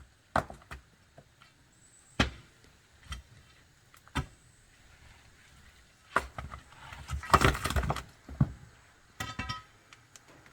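Stones and tools knocking and clinking in irregular single knocks during retaining-wall repair, with a louder stretch of clattering and scraping about seven to eight seconds in.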